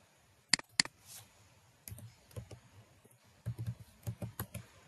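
Typing on a computer keyboard: two sharp clicks about half a second in, then a run of key presses that comes thicker over the last second and a half.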